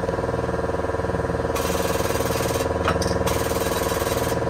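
Shop press driving a new bearing into an aluminium Suzuki Samurai transmission case, its powered pump giving a loud, rapid, steady chatter.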